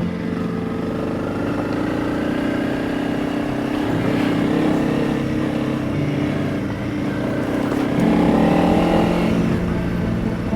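Honda CRF300 Rally's single-cylinder engine running as the bike is ridden, a steady engine note that changes pitch about four seconds in and again, louder, about eight seconds in.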